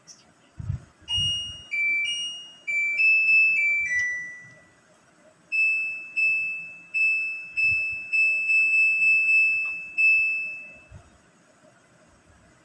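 Dawlance DWT 270 C LVS+ washing machine's control panel: a short electronic start-up tune of stepped tones as it is switched on, then about ten single beeps of the same pitch, one for each button press as the wash settings are chosen.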